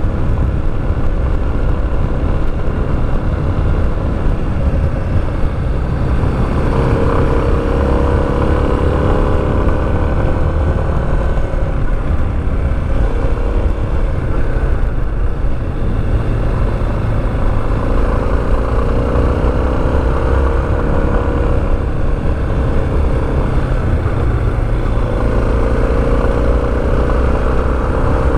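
Motorcycle engine running under way, its pitch climbing repeatedly as it pulls through the gears, over a steady low rumble of wind and road noise.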